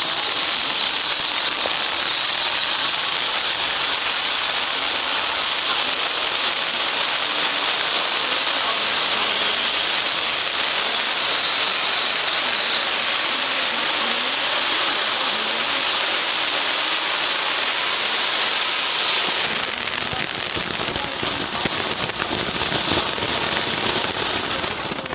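Conic fountain firework burning with a loud, steady hiss of spraying sparks. About 19 seconds in the hiss changes and crackling pops join it as the spray turns to red and green sparks. It dies out at the very end.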